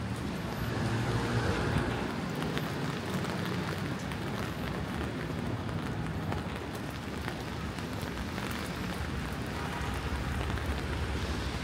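Wind gusting against the microphone, a low rumbling buffet, over a steady hiss of rain on wet pavement.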